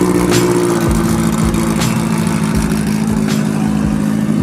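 Drag car's engine idling at a steady pitch while the car creeps along, with uneven low thuds from the exhaust.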